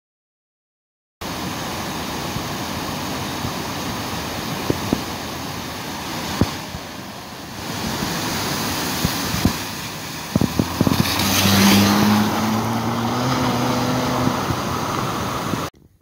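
After a second of silence, floodwater rushes steadily across a low road and over a spillway. In the second half a car drives through the water, its engine audible under a loud splash of spray, before the sound cuts off abruptly.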